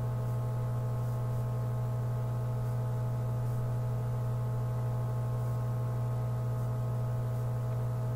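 Steady electrical mains hum with a stack of overtones, unchanging throughout.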